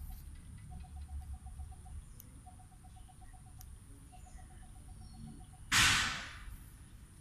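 Outdoor ambience with a steady high hiss and a rapid pulsing call, likely from a bird, repeated in four short runs of about a second each. Near the end comes a sudden loud rushing noise that fades within about half a second.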